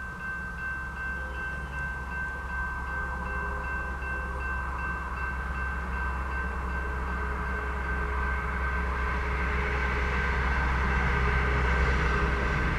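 Railroad grade-crossing warning bell ringing steadily, while a low rumble from the approaching freight train grows louder toward the end.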